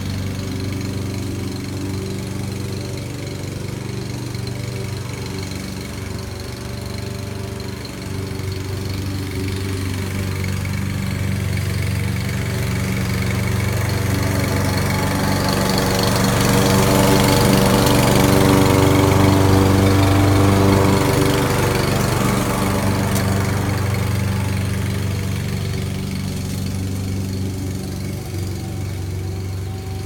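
Husqvarna walk-behind petrol lawn mower engine running steadily while the mower cuts grass. It grows louder as the mower drives close, about halfway through, then fades as it moves away.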